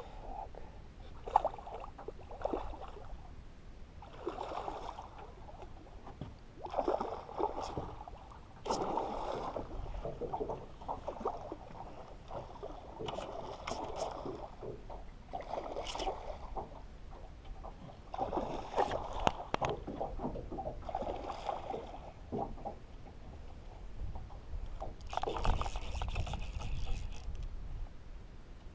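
Fly line being worked by hand during the fight with a big snook: irregular scraping bursts every second or two, with water sloshing against the boat.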